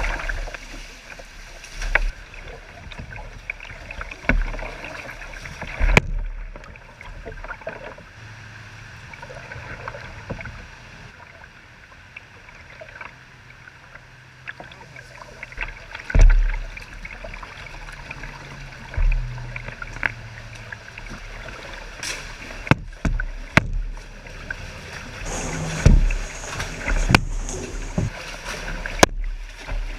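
Kayak being paddled through shallow creek water: paddle splashes and drips, with sharp knocks of the paddle striking something scattered throughout. A faint low hum runs through the middle stretch.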